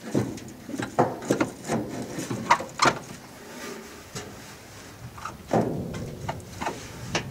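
Irregular knocks, clunks and scrapes of a heater core being worked against the hood hinge and surrounding sheet metal. They come thickest in the first three seconds and again near the end.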